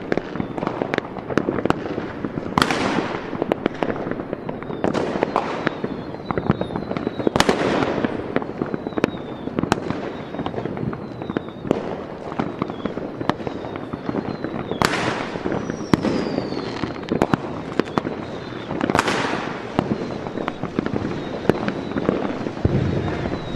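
Fireworks exploding, with continuous rapid crackling pops and five bigger bursts spaced a few seconds apart.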